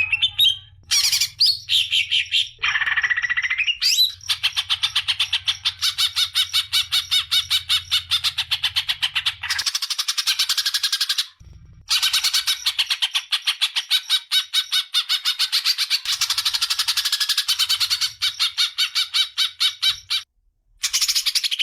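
Songbird singing harsh, rapid runs of repeated notes, about eight a second, in long trills broken by brief pauses: the rough 'kasaran' song used in masteran recordings to tutor cage birds. A faint low hum sits under the first half.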